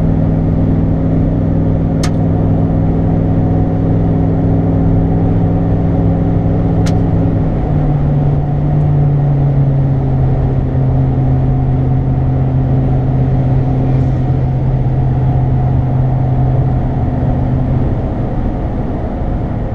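Ram pickup's engine and Flowmaster Super 44 exhaust heard from inside the cab while cruising on the highway: a steady, low engine note that settles a little lower in pitch about eight seconds in. Two faint clicks come about five seconds apart.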